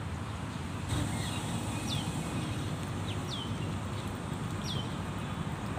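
A bird repeating a short high call that slides downward, about every one to one and a half seconds, over a steady low outdoor rumble.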